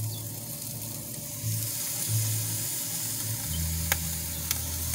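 Raw burgers, sausages, chicken thighs and steak sizzling on hot grill grates. The hiss grows louder about a second and a half in, with two sharp pops near the end.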